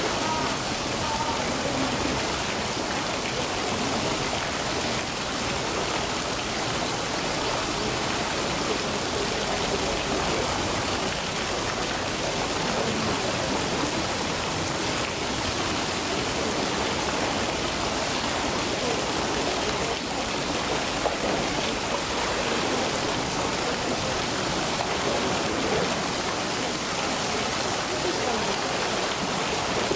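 Steady rushing of flowing water, even and unbroken.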